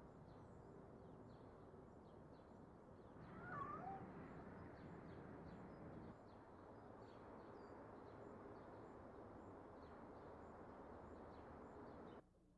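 A cat's short, faint meow about three and a half seconds in, over a steady low hiss.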